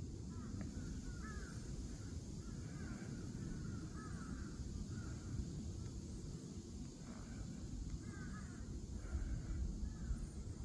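Wild birds calling: short, repeated calls in small bunches, coming every second or so, over a steady low rumble.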